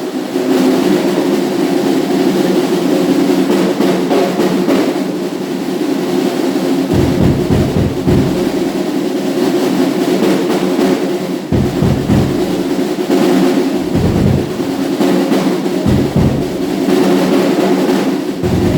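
Acoustic drum kit being played: a steady stream of fast drum strokes, with the bass drum joining in heavy bursts from about seven seconds in.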